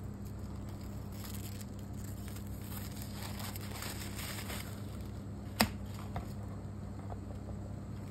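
Rustling and crinkling of the protective paper sheet being peeled off a MacBook Pro's display, then one sharp click about five and a half seconds in, followed by a couple of softer ticks.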